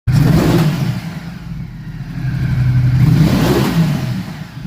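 Ducati Multistrada 950 S's Testastretta V-twin engine revving: a sharp rev right at the start that falls away, then a second slower climb in revs around three seconds in that eases off near the end.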